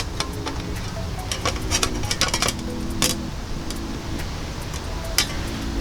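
Metal parts and hand tools clinking and clicking: bolts and the brackets of a motorcycle fender eliminator kit being handled and fitted, in short irregular taps, over a steady low rumble.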